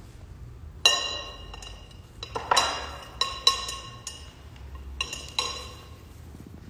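Glass or metal kitchenware clinking: about seven sharp clinks, each ringing briefly, the loudest about a second in.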